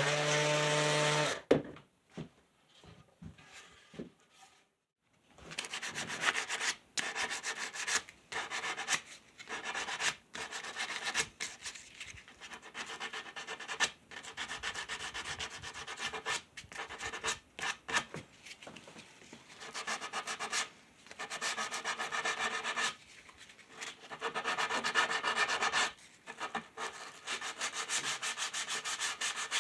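Sandpaper rubbing along the rounded-over edges of a wooden cutting board by hand, in irregular scratchy strokes with short pauses, after the router bit has cut the roundover. A power tool's motor runs at the very start and cuts off about a second in.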